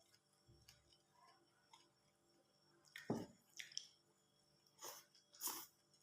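A person eating: faint, sporadic wet chewing and mouth smacking, a few soft short sounds, the loudest ones about three seconds in and again about five and a half seconds in.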